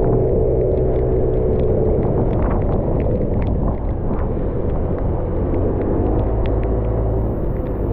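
Aprilia SXR50 scooter on the move: a steady rumble of engine and road noise, with scattered small ticks.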